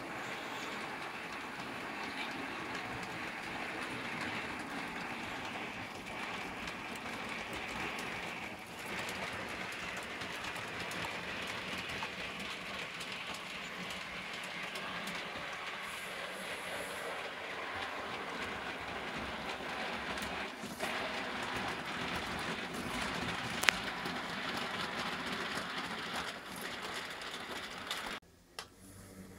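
H0 scale model trains running on the layout: a steady whir of the small locomotive motors and wheels rolling on the rails. A single sharp click comes about three-quarters of the way through, and the sound dips briefly just before the end.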